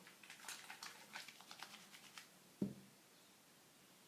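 Faint handling noises: small scattered clicks and rustles, then one soft knock about two and a half seconds in, after which it goes nearly silent.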